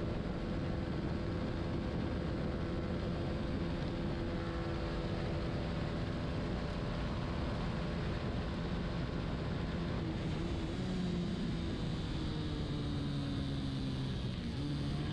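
Racing motorcycle engine held at high revs under wind rush on the onboard camera; about ten seconds in the engine note drops as the bike slows for a corner, then starts to rise again at the end.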